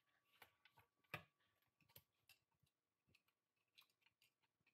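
Near silence with scattered faint clicks and taps of parts being handled on a workbench, the loudest about a second in.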